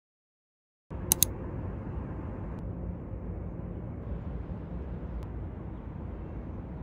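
Steady low rumble of background noise with a faint hum underneath, starting about a second in after total silence, with two sharp clicks just as it begins.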